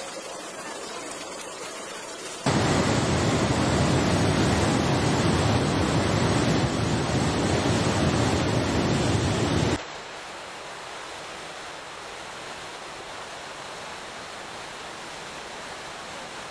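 Fast-flowing floodwater rushing and churning: a loud, even rushing noise that starts suddenly about two seconds in and cuts off abruptly near ten seconds. Before and after it there is a quieter steady hiss.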